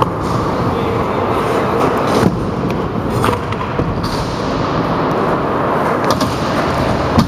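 Stunt scooter wheels rolling over skatepark ramps, a steady rumble with a few sharp knocks.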